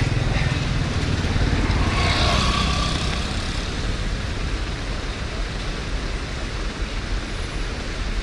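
Steady roadside traffic noise from a jammed highway: the engines of slow-moving and idling buses, minibuses, trucks and cars make an even, low hum.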